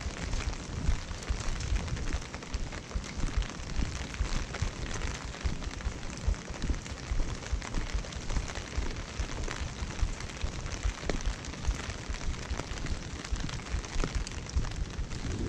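Wind buffeting a GoPro's microphone in steady rain: a deep, uneven rumble that rises and falls constantly under the continuous hiss of rain on wet pavement.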